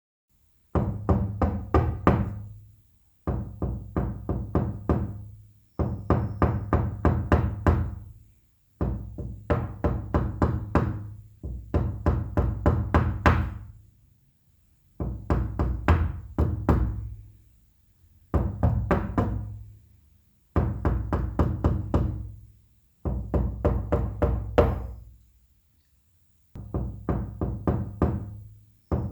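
Loud knocking on a wooden door: about ten bursts of several quick raps, each burst lasting about two seconds, with a short silence between bursts.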